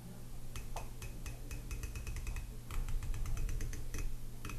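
Nightforce Benchrest riflescope's target-style elevation turret being turned by hand: a run of sharp, positive 1/8-MOA clicks, several a second, bunching up quickest around the middle.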